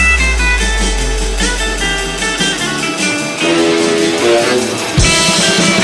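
Rock music with guitar: picked notes over a held bass note that fades out about halfway, then the full band comes back in with a hit near the end.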